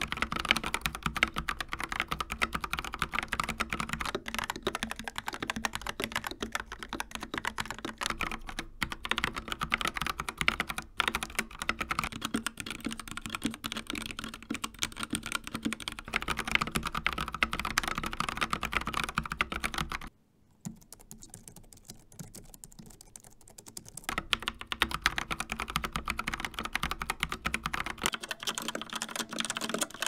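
Continuous typing on several keyboards, one after another: mechanical switches (Akko Jelly Purple, G3ms Sapphire, Kailh Box Black), then the much quieter scissor-switch keys of a Logitech MX Keys about two-thirds of the way through, and near the end an Outemu Red mechanical board.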